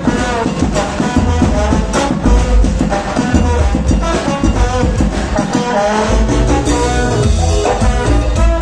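Live Latin dance band playing an instrumental passage, trombone and trumpet playing the melody over congas, timbales and electric bass with a steady dance beat.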